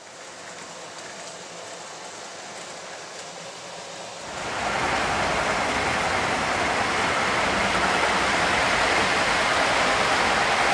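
O gauge model trains running on three-rail track: a steady rushing rumble of wheels and motors, which grows louder about four seconds in.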